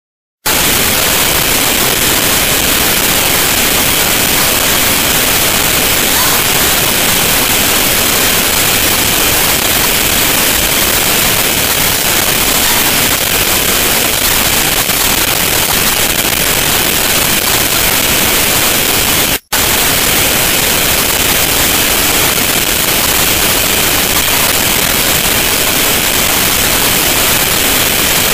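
Loud, steady hiss of noise with no pattern in it, strongest in the high range, cutting out for an instant about two-thirds of the way through.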